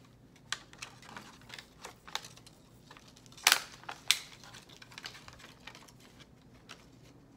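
Scattered light clicks and taps of small objects being handled at a table, with two sharper clicks about halfway through.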